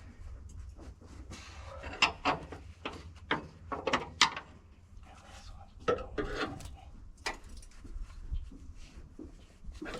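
Irregular knocks, clanks and scraping as parts of equipment are handled and worked on by hand, thickest in the first half, over a steady low rumble.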